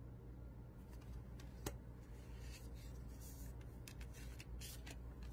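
Faint handling of tarot cards: soft slides and light taps as cards are moved, with one sharper tick about a second and a half in.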